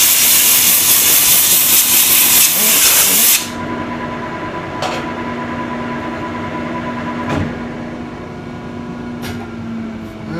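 Compressed-air blow gun giving a loud, steady hiss as it blows chips off a freshly cut square-threaded lathe workpiece, cutting off suddenly about three and a half seconds in. After it, a quieter steady machine hum with a few light clicks.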